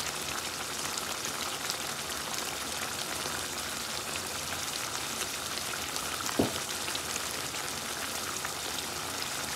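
Chicken and bottle gourd curry simmering in a wok, a steady crackling sizzle of the liquid cooking. There is one short knock about six seconds in.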